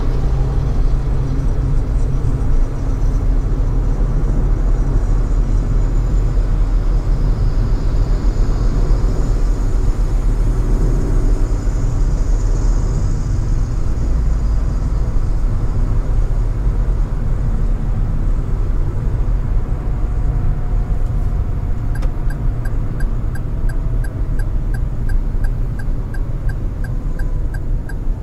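Steady low rumble of a car driving, road and engine noise. After about twenty seconds a regular ticking starts, about three clicks a second, typical of a turn-signal indicator.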